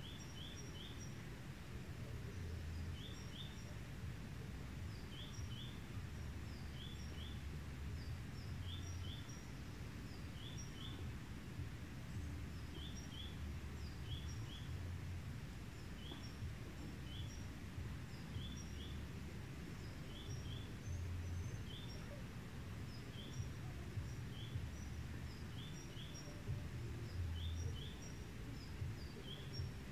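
A small bird calling over and over, a quick pair of high chirps roughly every two seconds with fainter higher notes in between, over a steady low rumble of outdoor background noise.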